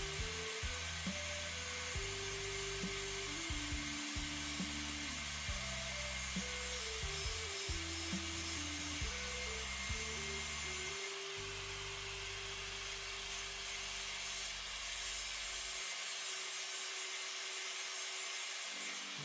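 Instrumental passage of a background song, with a melody and bass line, over a steady high hiss. The bass drops out about three-quarters of the way through.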